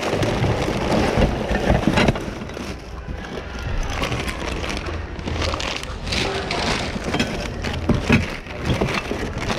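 Hands rummaging through a bin of assorted secondhand goods: irregular clattering, knocking and rustling as items are shifted and picked over.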